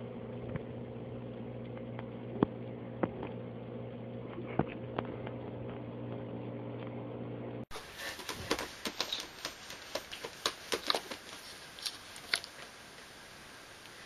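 A steady low hum with a few sharp clicks. After a cut about halfway through, a run of irregular light taps and scratches from a tabby cat's claws on a notebook cover lying on carpet, thinning out near the end.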